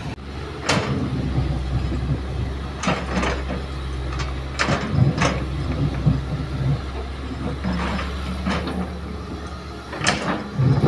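Kobelco hydraulic excavator's diesel engine running with a steady low hum while it digs and loads soil, broken by about nine short, sharp scraping or clattering noises from its work.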